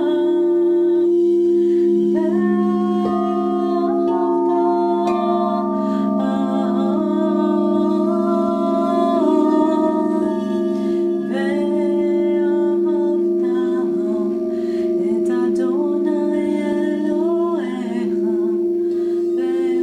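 Crystal singing bowls played with a mallet, several low tones ringing steadily together, with a woman's wordless singing gliding from note to note over them.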